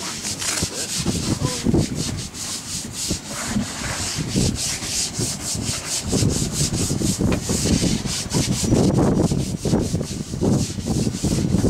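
Floatplane taxiing toward the listener on the water. Its engine and propeller run under a hiss of spray off the floats and rough gusts of wind buffeting the microphone, growing louder about halfway through.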